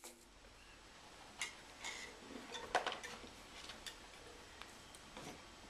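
A few separate light clicks and knocks from a small tin can being handled, the clearest a little under three seconds in.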